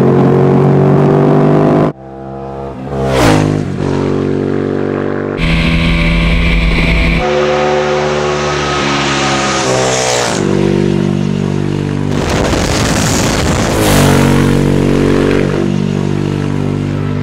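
Sport motorcycle engines running hard in a string of cut-together clips: a steady high-revving engine note heard from on the bike, and bikes going past with a sliding pitch about three seconds in and again near the end. A short stretch of wind rush comes in between.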